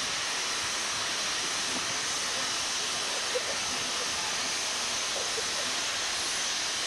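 Steam locomotive giving off a steady, even hiss of escaping steam, with no exhaust beats.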